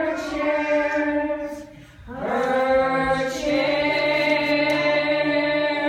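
A group of voices singing unaccompanied: one long held note, a short break about two seconds in, then a second long held note.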